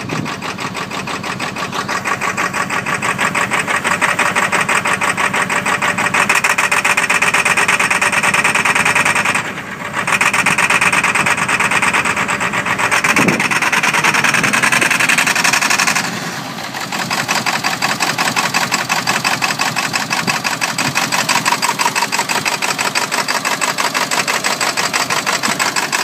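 1995 Ford F-250's 7.3-litre Powerstroke turbo-diesel V8 running just after a hard cold start, its firing a fast, even clatter. The level dips briefly twice, near the middle.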